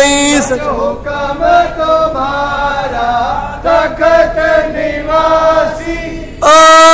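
A man's voice chanting a Sikh devotional line, softer with a wavering pitch, then a loud held chanted line comes back near the end.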